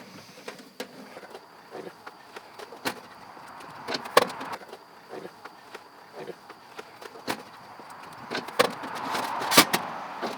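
Thin sheet-metal panels of a folding Coleman camp oven clicking and clanking as it is unfolded and assembled by hand: a string of sharp knocks about a second apart, the loudest near the end.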